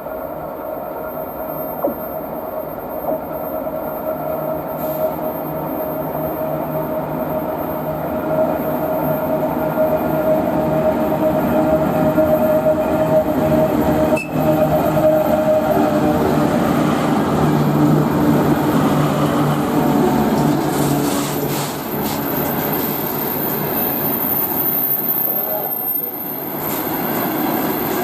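A long freight train rolling past at speed: a steady rumble of wagon wheels on the rails, with a thin steady ringing tone that fades out about halfway through.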